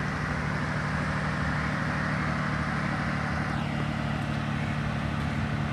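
A vehicle engine idling steadily, an even low hum that doesn't change.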